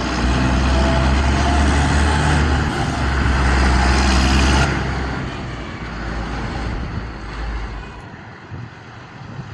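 Tractor engine running steadily under load with a deep, even hum; about halfway through it drops off and fades, as if the tractor is moving away.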